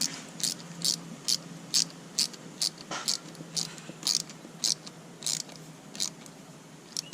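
Ratchet wrench clicking in short repeated strokes, about two a second and slowing a little towards the end, as the hose connection to the new EGR valve is tightened down.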